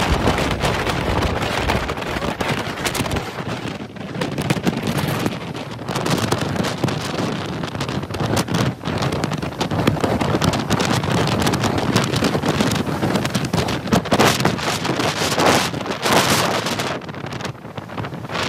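Strong wind buffeting the phone's microphone in gusts, over the noise of rough storm surf breaking and washing in.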